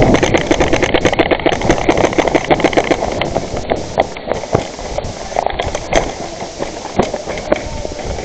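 Airsoft guns firing: rapid sharp pops, dense for about the first three seconds, then scattered single shots.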